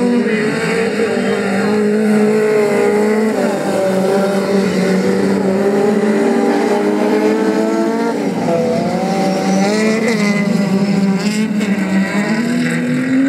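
Rallycross race car engines running hard at high revs, their pitch falling and climbing again several times as the cars take the corners.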